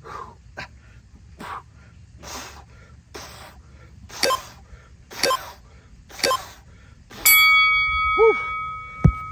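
A man breathing out hard in a steady rhythm, about one breath a second, some of them voiced grunts, as he works through kettlebell core twists. About seven seconds in, a clear ringing tone sets in and slowly fades, and there is a short thump just before the end.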